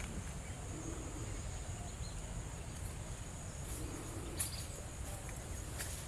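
Steady high-pitched drone of insects, with a low rumble underneath and a single sharp click a little after four seconds in.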